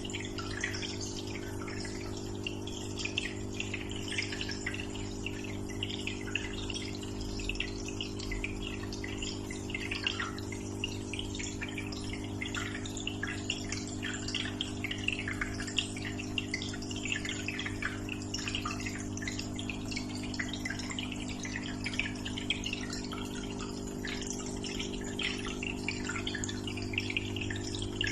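Aquarium water trickling and bubbling continuously, with a constant low hum from the tank's pump underneath.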